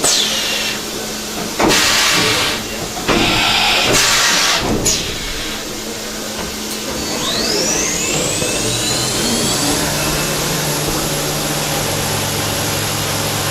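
CNC machining centre spindle during a tool change. Its whine falls away as it stops, then come two loud hissing blasts. The spindle then spins back up in a rising whine that settles on a steady high pitch.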